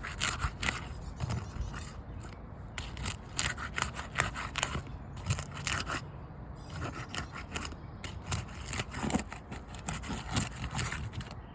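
A roof snake worked under brittle 3-tab asphalt shingle tabs to break their adhesive seals. It makes repeated short scraping and crackling strokes in several bursts with brief pauses between.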